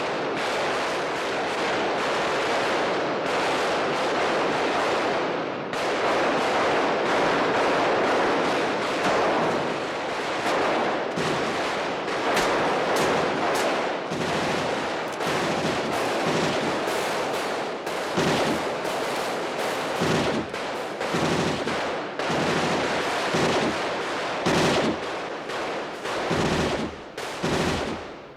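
Film-soundtrack gunfire: many overlapping handgun shots fired in rapid succession, blurring into one dense clatter at first, with separate shots standing out more clearly after about six seconds.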